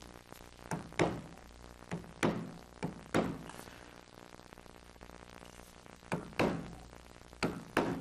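Wooden mallet striking the handle of a carving gouge to drive it through wood, about ten sharp knocks mostly in pairs, a lighter tap then a harder blow, with a pause of a couple of seconds midway. The gouge is cutting feather shapes into the carving.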